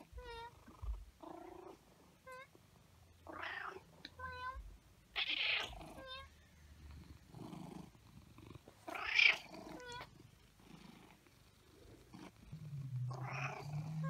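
Domestic cat vocalizing close up: a string of short chirps and several raspy murmuring calls, with a low steady rumble setting in near the end.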